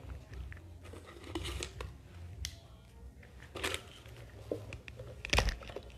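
Cosmetic packaging being handled: scattered rustling and light clicks of boxes and containers, with one louder knock about five seconds in.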